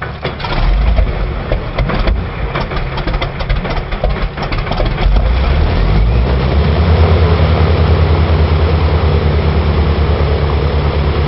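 Avro Shackleton's Rolls-Royce Griffon V12 piston engine starting: irregular pops and coughs for the first few seconds, then catching and settling into a steady, even running beat that grows louder about six seconds in.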